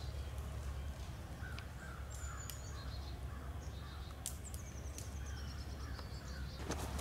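Birds calling in bare trees: a series of short, lower calls mixed with runs of high, thin chirps, over a steady low rumble. A few crackling steps start near the end.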